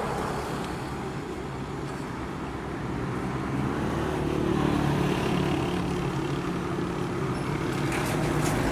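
Street traffic with a motor vehicle's engine running close by, its hum swelling louder from about three seconds in.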